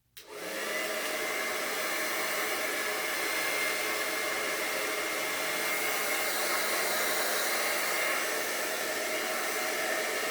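Xlinder 1875W AC-motor salon hair dryer switched on about a quarter second in, quickly coming up to speed and then running steadily, blowing through its concentrator nozzle. It gives a steady rush of air with a faint whine.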